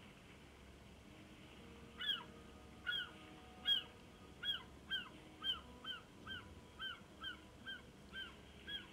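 An animal calling over and over: short, high calls, each arching and dipping in pitch. They start about two seconds in and settle to about two a second.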